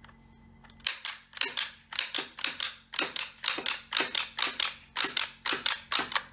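Rubber band toy gun firing its load of rubber bands one after another: a quick run of sharp plastic clicks, a few a second, starting about a second in and stopping near the end as the gun runs empty.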